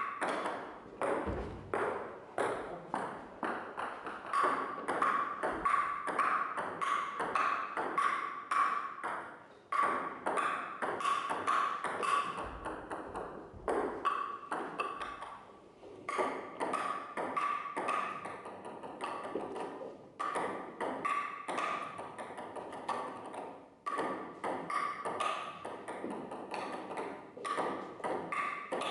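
Table tennis ball being hit and bouncing in a continuous rally: a quick, even run of sharp clicks, about two to three a second, each with a short ringing tone.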